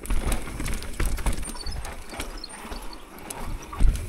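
Mountain bike descending a rough trail: the bike rattles with irregular clicks and knocks over a low rumble of tyres and wind.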